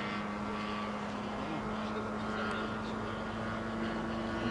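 Engine and propeller of a radio-controlled scale P-51D Mustang model droning steadily in flight, a constant pitched note with a higher whine above it.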